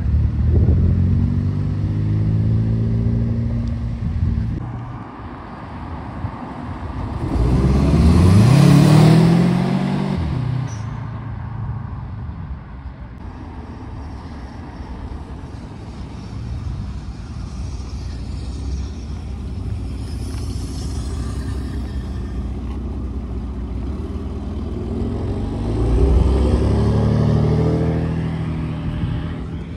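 Cars driving past one at a time with their engines rising in pitch as they pull away. The loudest pass comes about eight seconds in, another near the end, with quieter traffic between.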